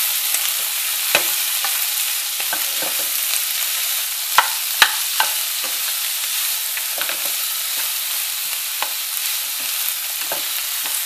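Sliced bitter melon and garlic sizzling in hot oil in a nonstick frying pan as they are stir-fried: a steady hiss with scattered knocks and scrapes of the spatula and pan, a few sharper ones around four to five seconds in.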